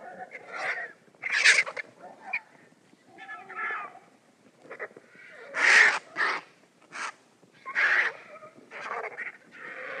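Made-up sound-effect calls for Qiupalong, an ostrich-like ornithomimid dinosaur: a string of short animal cries, about one a second, with two louder than the rest, one near the start and one midway.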